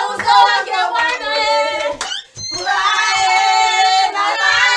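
Women and children singing together with hand claps, long held notes from several voices; the singing breaks off briefly about two seconds in.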